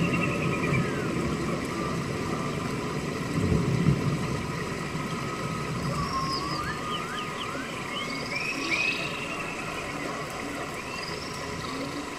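Scattered short whistling animal calls that rise and fall in pitch, over a steady low rumble, with a brief louder swell in the rumble about three and a half seconds in.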